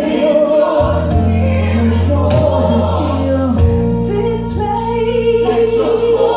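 Gospel music: voices singing in harmony over low, sustained bass notes.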